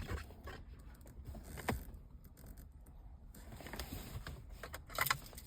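Scattered light clicks and scrapes of plastic interior trim and wiring connectors being handled while the MMI control panel is unplugged from behind.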